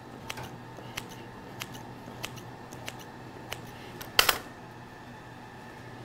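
Kitchen scissors snipping through a rolled log of bread dough filled with cream cheese and walnuts, six crisp snips about two-thirds of a second apart, then one louder knock about four seconds in.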